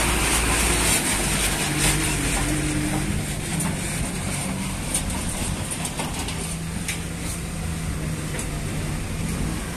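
Motorcycle engine running on the move, its pitch shifting slightly a few times, under a steady rush of wind and road noise on the microphone.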